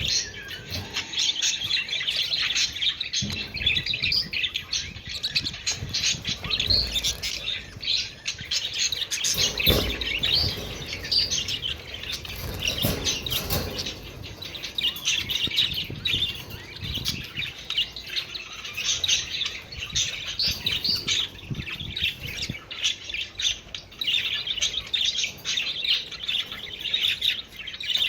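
Budgerigars chattering and chirping continuously, many overlapping high chirps and warbles.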